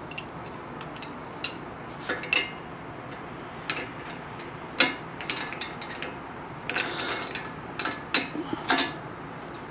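Ratcheting wrench clicking in short, irregular runs as a bolt is tightened on a steel engine stand's upright post.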